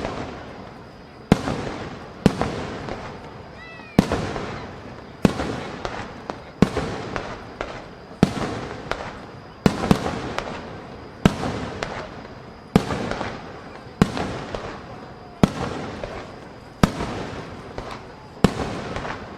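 Aerial firework shells bursting in quick succession, about one sharp bang a second, each followed by a rolling echo that fades before the next.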